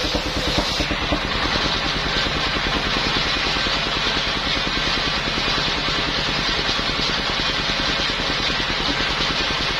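Engine-driven circular saw machine running steadily, its engine firing in a fast even pulse under the blade's high sound. A faint high hiss on top stops about a second in.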